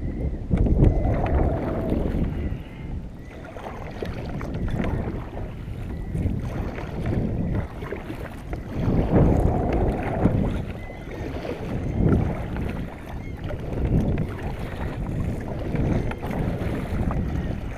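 Water and wind noise from a kayak on the open sea, swelling and easing in surges every couple of seconds, with wind buffeting the microphone.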